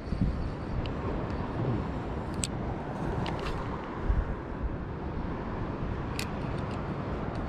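Steady wind noise buffeting the microphone by the sea, with a stronger low gust about four seconds in. A few short, sharp clicks sound about two and a half, three and six seconds in.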